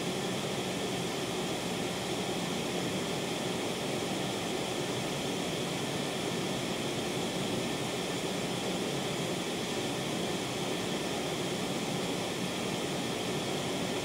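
Steady residual noise of a high-gain (76 dB) phonostage, amplified loud: mostly even hiss with little hum left and no spikes, its power supply backed by two SP capacitor packs.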